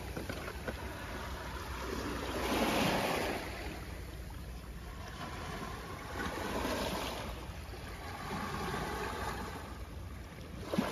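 Surf washing on a rocky shore, the noise of the sea swelling and easing every few seconds, with a light knock near the end.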